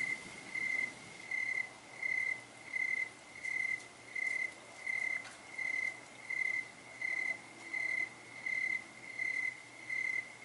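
A cricket chirping in an even rhythm, about one and a half short, high-pitched chirps a second.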